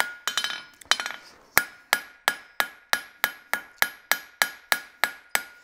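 A blacksmith's hand hammer strikes red-hot horseshoe steel on an anvil in a steady rhythm of about three blows a second. The blows are thinning and spreading the hot metal. The first few blows ring on.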